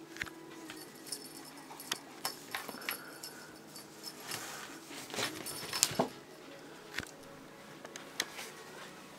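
A Scottish Straight kitten batting and biting a feathered wand toy. Scattered light taps, clicks and rustles sound as paws and toy hit the fabric floor, with the loudest cluster about five to six seconds in.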